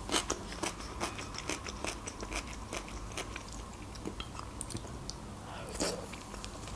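Close-miked mukbang chewing of a mouthful of beshbarmak, boiled meat and soft flat noodles, as a run of small wet mouth clicks and smacks.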